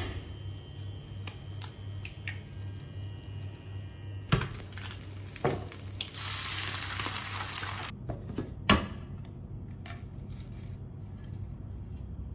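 Egg frying in a rectangular pan on an induction hob: metal knocks of the pan and utensils, an egg cracked in, and a burst of sizzling for a couple of seconds about six seconds in. Under it runs the hob's low hum, pulsing about three times a second.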